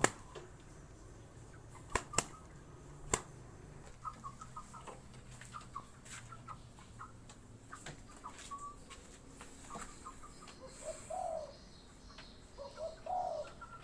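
Dove cooing softly, two low calls near the end, with short chirps and a few sharp taps in the first few seconds.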